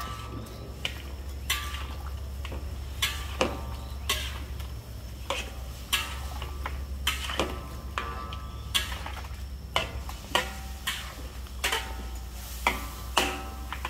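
Metal utensil knocking and scraping against a metal cooking pot during stirring: irregular sharp clinks, one or two a second, many with a short metallic ring. A steady low rumble runs underneath.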